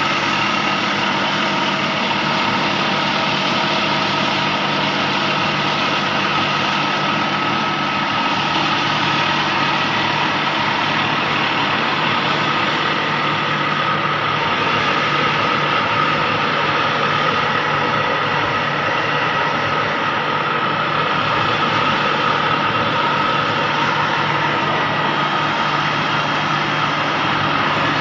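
Diamond wire saw running steadily while cutting reinforced concrete: a constant machine hum with a fixed whine over an even hiss.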